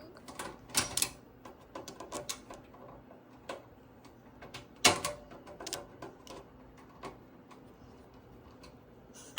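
Irregular clicks and knocks of hard plastic and metal computer parts being handled with a screwdriver, with sharper taps about a second in and again near five seconds.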